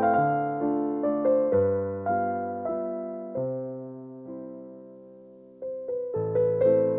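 Background piano music: gentle notes that ring and die away one after another. It thins out and grows quieter over the middle, then comes back fuller near the end.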